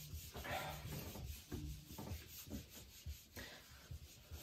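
Whiteboard eraser rubbing across a whiteboard, wiping off marker writing in quick, repeated strokes.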